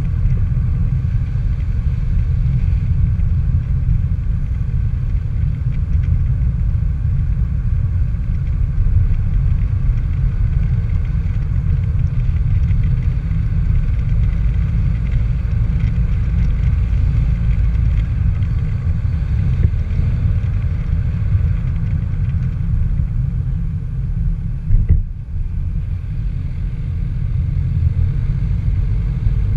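Steady low rumble of wind buffeting a moving camera's microphone, with road noise from travel along the street beneath it, and a brief bump about 25 seconds in.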